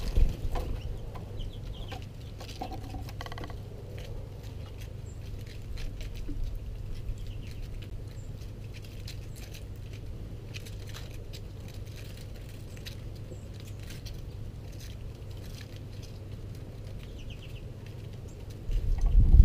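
Birds feeding at close range on loose seed on a wooden table: scattered light taps and clicks of bills pecking and feet hopping, with a few faint chirps, over a steady low rumble that swells much louder near the end.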